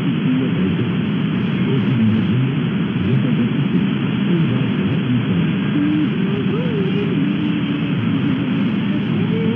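All India Radio's Hindi shortwave service on 9865 kHz, received weakly on a software-defined radio in synchronous AM. A steady rush of static and noise, cut off above about 4 kHz, with faint programme audio buried underneath.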